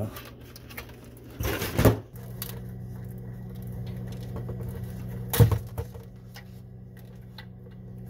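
Hands working a wire connector loose from a refrigerator's control board: a short rustling scrape about a second and a half in, then a single sharp click a little after five seconds, over a steady low hum.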